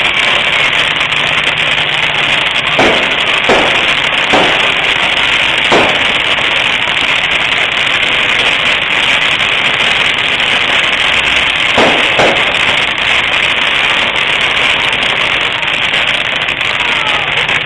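Ground firework spraying sparks with a steady, loud hiss, broken by sharp pops: four in quick succession a few seconds in, and two close together about twelve seconds in.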